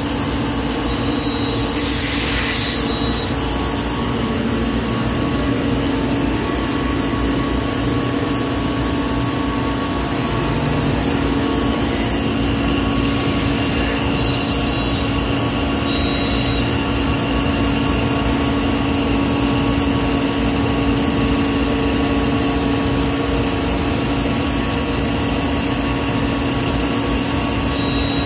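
Weeke Vantech 480 CNC router and its vacuum and extraction machinery running: a steady mechanical hum and rush of air with several steady tones. A brief hiss about two seconds in.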